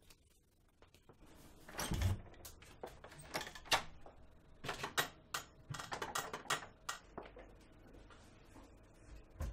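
A door opening with a heavy thump about two seconds in, followed by several seconds of sharp, irregular clicks and knocks, and one more knock near the end.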